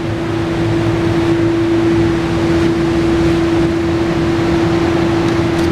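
2003 Yamaha XVZ1300 Royal Star Venture's V4 engine idling steadily: a low, even rumble with a steady tone held over it.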